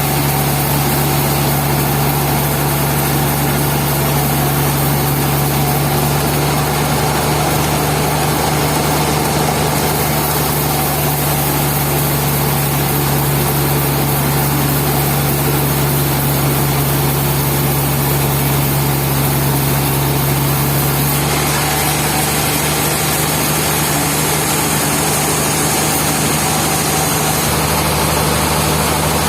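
Sawmill machinery running with a loud, steady drone and a constant low hum, its tone shifting slightly about two-thirds of the way through.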